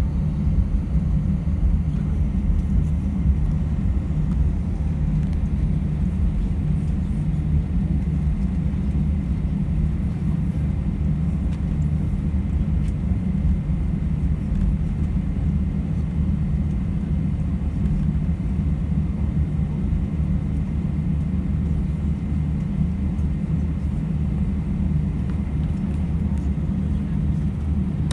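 Steady low rumble inside the cabin of an Airbus A320-232 taxiing on the ground: its IAE V2500 engines at taxi power and the landing gear rolling over the taxiway, with a faint high steady whine on top.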